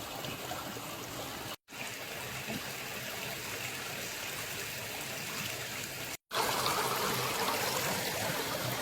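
Small river flowing, a steady rush of water. It cuts out briefly twice and is a little louder over the last couple of seconds.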